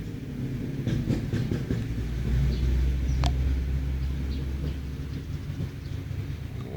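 Snoring: a low, steady drone that swells about two seconds in and eases off after about four seconds.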